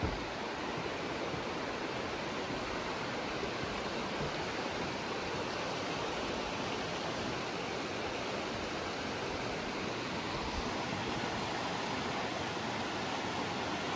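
Mountain creek rushing over rocks, a steady even whoosh of running water, with one short thump at the very start.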